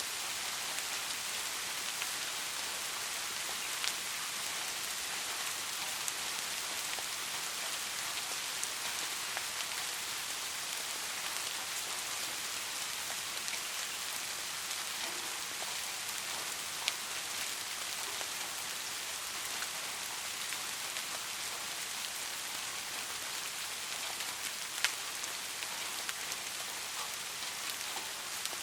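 Steady soft rainfall: an even hiss of falling rain with now and then a single sharper drop tick.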